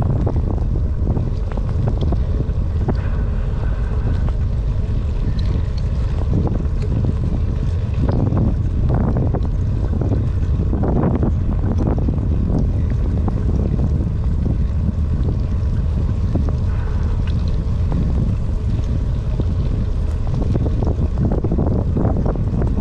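Wind buffeting the microphone of a handlebar-mounted camera on a moving bicycle: a steady low rumble, with the hiss of the tyres on the wet, rain-soaked path mixed in.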